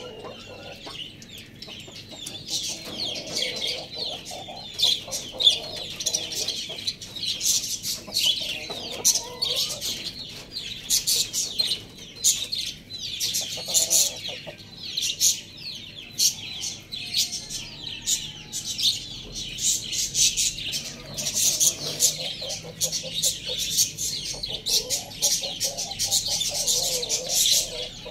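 Chickens clucking low, mixed with a dense stream of short, high-pitched chirps.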